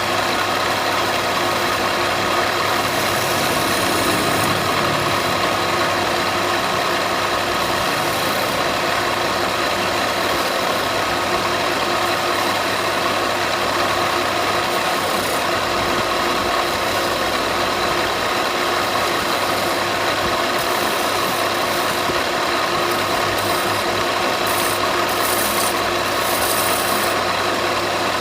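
A woodworking power tool's motor running at a steady, unchanging pitch.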